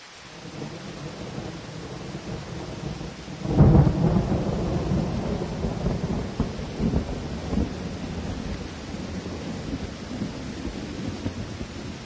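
Thunder: a low rumble builds, breaks into a loud clap about three and a half seconds in, then rolls on in uneven peals.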